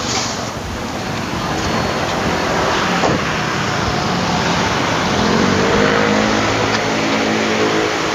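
A motor vehicle's engine running over steady traffic noise, its pitch rising about five seconds in and then holding.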